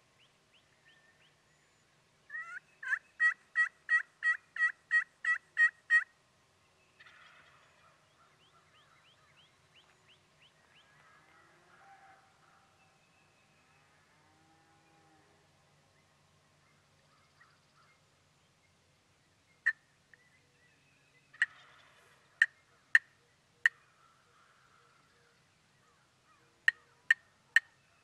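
Turkey yelps: a run of about eleven evenly spaced yelps, about three a second. Later come short, sharp clucks, singly and in quick groups of four.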